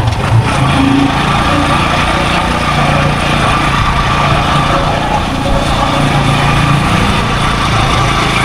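A small engine runs steadily with a constant hum, amid road and traffic noise from travel along a busy road.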